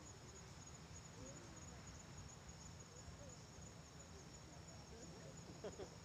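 Faint seaside evening ambience: insects chirring steadily and high, over a low steady rumble of sea breeze. Faint distant voices come and go and are briefly louder near the end.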